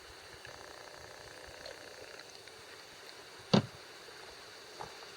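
A single sharp knock about three and a half seconds in, with a lighter click near the end, over a faint steady hiss.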